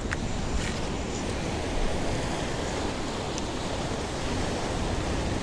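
Steady wash of ocean surf breaking on a rocky shore, with wind rumbling on the microphone.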